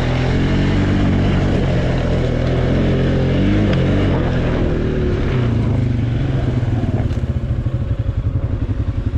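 ATV engine running, its pitch rising and falling with the throttle, then dropping to a slower, uneven beat near the end.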